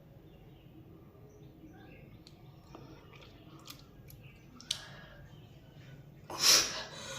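Faint room background with small scattered clicks. Then, about six seconds in, one short, loud cough from a woman with a heavy chest cold bringing up thick phlegm.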